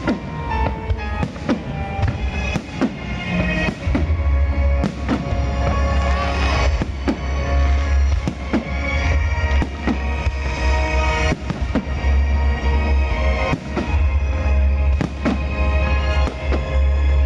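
Fireworks display: aerial shells bursting in quick, irregular succession over loud music with a heavy bass.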